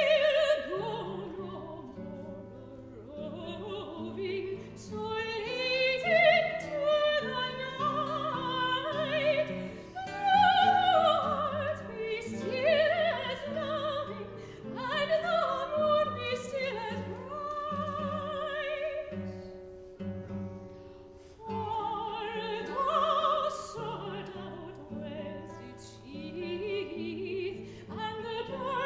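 Classical soprano singing an art song in operatic style with vibrato, accompanied by a baroque guitar. There is a brief break in the voice a little past two-thirds of the way through.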